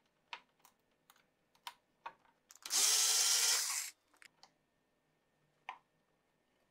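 A cordless electric screwdriver runs once for about a second, with a high motor whine, backing out a screw from the laptop's cooling fan. Light clicks and taps of the parts being handled come before and after it.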